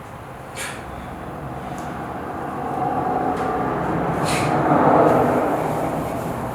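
A passing vehicle: its noise builds, peaks about five seconds in, then fades, with a couple of short clicks on top.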